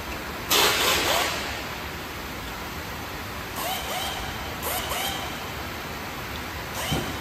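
Aluminium sliding door panels rolling along their track, with a loud rush about half a second in as a panel is pushed, then a few short squeaks around the middle, over a steady hiss.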